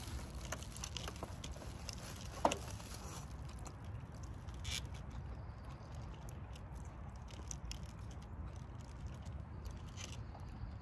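A person chewing a mouthful of carne asada taco close to the microphone: small wet mouth clicks and smacks over a steady low rumble, with one sharper click about two and a half seconds in.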